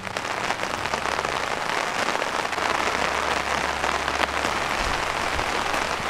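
Steady rain falling on a stretched tarp canopy and on wet ground: an even hiss made of many fine drop ticks.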